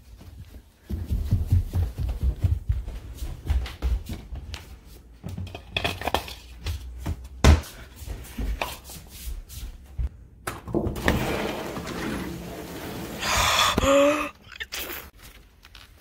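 Rubbing and bumping of a handheld phone on the move, with many irregular low thumps and knocks. A louder rushing noise takes over from about two-thirds of the way in, ending with a short rising squeak.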